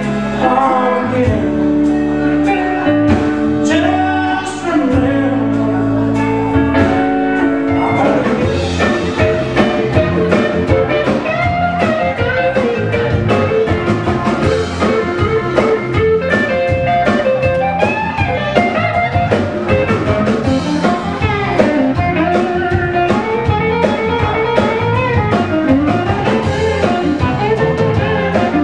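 Live blues band playing: electric guitar over bass and drums, with held notes for the first several seconds and then a busier passage of bending guitar lines.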